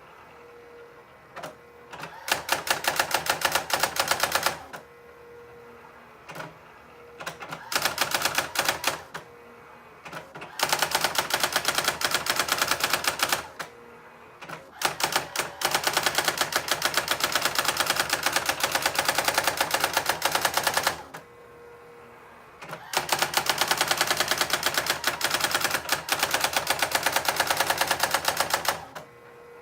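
Brother SX-4000 electronic typewriter printing: runs of fast, even strikes lasting a few seconds each, broken by short pauses, with a faint steady hum from the machine in the gaps.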